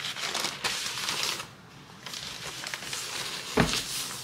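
Baking paper crinkling and rustling as hands roll puff pastry up inside it, with a single thump on the countertop about three and a half seconds in.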